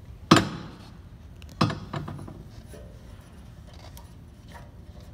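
A hand turning the service valve on a propane cylinder: two sharp knocks about a second and a half apart, then faint clicks and rubbing.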